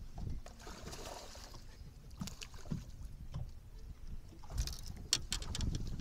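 Water lapping and knocking against a fishing boat's hull, with a quick run of splashing about four and a half seconds in as a hooked fish is brought to the side of the boat.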